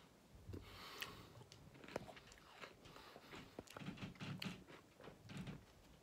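Faint close-up eating sounds: a mouthful of Oreo Blizzard ice cream taken off a plastic spoon and chewed, with small scattered clicks. The chewing is a little louder about four seconds in.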